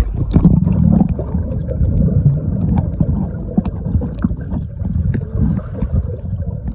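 Muffled underwater sound of a swimming pool picked up by a submerged phone microphone: a dull low rumble of moving water with scattered small clicks and pops.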